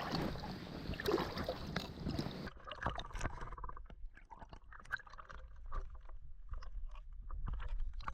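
Wind on the microphone over sloshing water, changing abruptly about two and a half seconds in to a quieter run of small splashes, knocks and scrapes.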